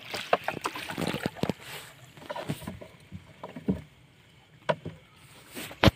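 Fishing net being hauled in over the side of a small wooden boat, with water splashing and dripping off the net and irregular knocks against the hull. One sharp, loud knock comes near the end.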